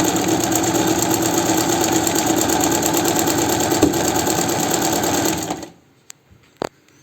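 Chaika 143A sewing machine running steadily at speed, sewing a straight-stitch test seam after a needle-bar adjustment. It stops about five and a half seconds in, followed by a couple of sharp clicks.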